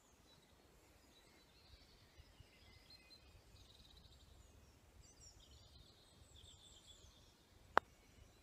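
A single sharp click of a putter striking a golf ball near the end, over faint birdsong.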